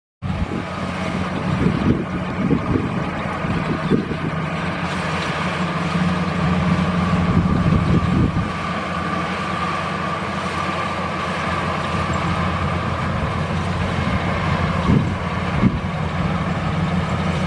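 Maxxi Bimo 102 mini rice combine harvester running steadily under load, its engine hum topped by a steady whine, with a few scattered knocks.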